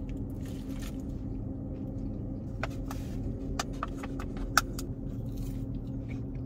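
Chewing and the crinkle of a foil burger wrapper being handled, heard as a few short sharp clicks in the middle, the loudest about four and a half seconds in, over the steady hum of a parked car idling.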